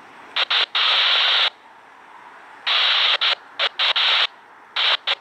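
Railroad radio scanner giving bursts of static that cut sharply in and out: several short crackles and two longer hisses, each under a second.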